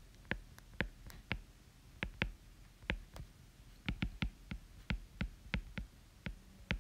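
Stylus tip tapping and clicking against an iPad's glass screen during handwriting: an irregular run of short, sharp clicks, about three a second.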